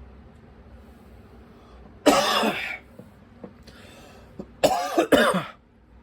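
A man coughing and clearing his throat: one harsh cough about two seconds in, then two quick coughs close together near the end.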